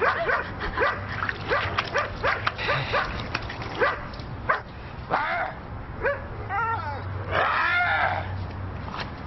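Dog barking and yipping in a quick run of short barks, about two a second, with a longer drawn-out bark or growl near the end.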